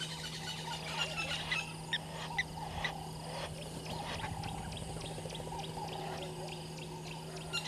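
Wildlife calling in the bush: many scattered short, high chirps and calls, with a steady low hum underneath.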